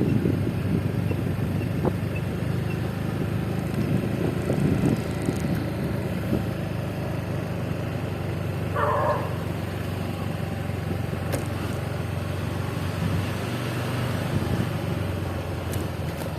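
Motor scooter engine running steadily on the move, with road and wind noise. A short higher-pitched call or beep comes about nine seconds in.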